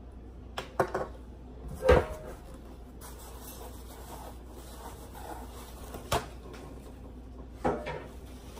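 Handling noise: a lipstick tube and other small items picked up and set down on a granite countertop, a few short clicks and knocks, the loudest about two seconds in, then single knocks near the middle and near the end.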